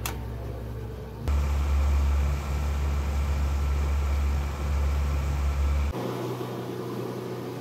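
Small cabin motorboat with an outboard engine running under way, a steady engine hum with water and hull noise. The sound changes abruptly about a second in, turning deeper and heavier, and again near the end, where it goes back to a lighter, steadier hum.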